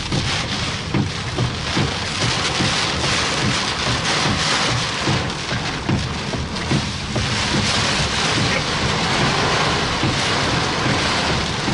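Heavy wind-driven rain pounding on a car's roof and windshield, heard from inside the car as a loud, steady rush with frequent small knocks.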